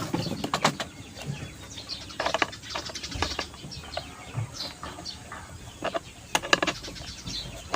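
Scattered clicks and knocks of exhaust-fan parts being handled and worked on, with birds calling in the background.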